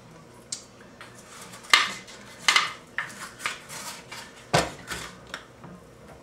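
Kitchen clatter as a plastic ketchup squeeze bottle is handled over a metal baking sheet: a string of separate sharp knocks and short clatters, the loudest about a second and a half in, another strong knock past the four-second mark.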